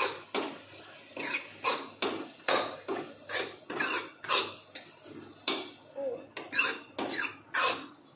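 Metal ladle scraping and knocking against a metal kadhai as a thick vegetable mash is stirred, in an even rhythm of strokes about two to three a second.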